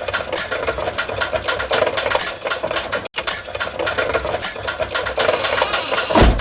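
A dense, fast mechanical rattling clatter made of many rapid clicks. The same stretch of about three seconds plays twice, with a sudden brief cut between the two.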